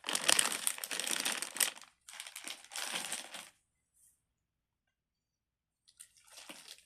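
Crinkling of plastic being handled, in two bursts of a second or two each, then a faint rustle near the end.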